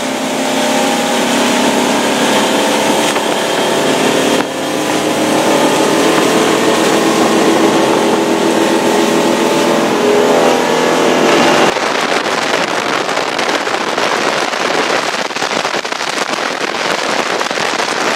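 Boat motor running steadily with the boat under way. About twelve seconds in, the engine's tone drops out abruptly, leaving a harsh rushing noise.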